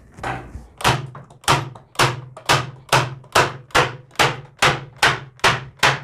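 Pumpkin 50170 electric nail gun firing nails into plywood in quick succession: about thirteen sharp shots, coming faster toward the end, from about one every half second to over two a second.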